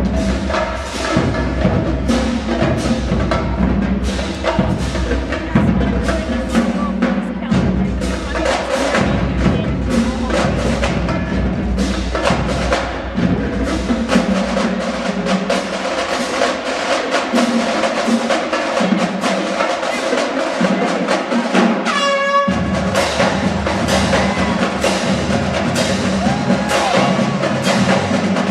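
High school marching band playing, with busy drum and percussion parts over held wind notes.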